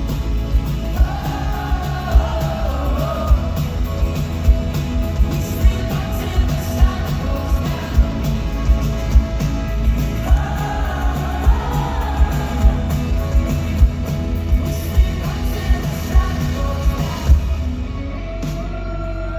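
Live band playing an indie-pop song in an arena, with lead and backing vocals over a steady drum beat, recorded from the audience. The sound thins out near the end.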